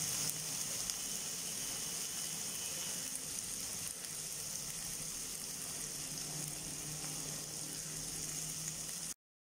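Chopped vegetables sizzling in oil in a frying pan, a steady high hiss. It drops slightly about four seconds in and cuts off suddenly near the end.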